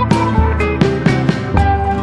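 Background music: an upbeat track with plucked guitar-like notes over a steady beat of low thumps about twice a second.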